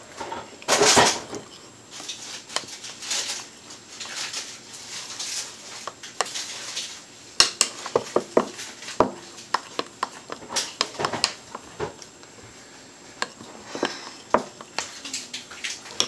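A utensil stirring pancake batter in a glass bowl: irregular scraping swishes and sharp clinks against the glass, the loudest swish about a second in.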